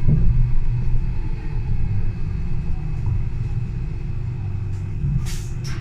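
Solaris Urbino 12 Hydrogen fuel-cell electric bus running: a low rumble with a faint steady whine that slowly gets quieter. Two short bursts of hiss come near the end.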